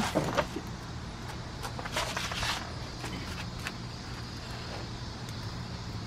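Scattered soft scrapes and crackles of digging through garden soil for potatoes, a few at a time, over a steady low hum.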